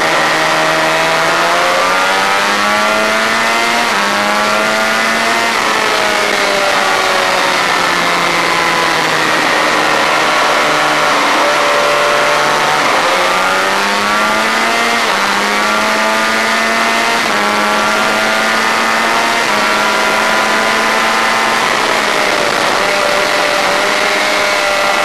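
Honda VFR400 racing motorcycle's V4 engine at high revs, heard from on board with wind rush; the revs rise and fall through the corners, with several abrupt pitch steps at the gearshifts.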